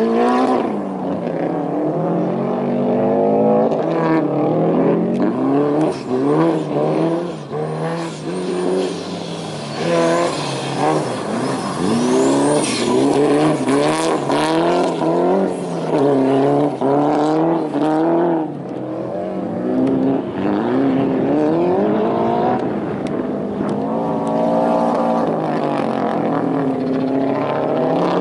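Mitsubishi Lancer Evolution rallycross car's engine revving hard on a dirt course, the pitch repeatedly climbing and dropping with each gear change and lift-off through the slides.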